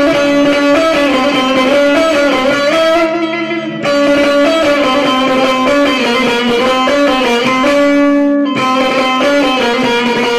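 Bağlama (long-necked Turkish saz) playing an instrumental melody of plucked notes, with a short break about three and a half seconds in.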